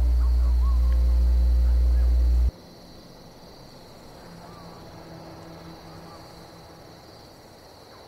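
A loud, deep, steady drone cuts off abruptly about two and a half seconds in. It leaves a faint outdoor soundscape of steady high insect chirring, like crickets, with a few soft bird calls.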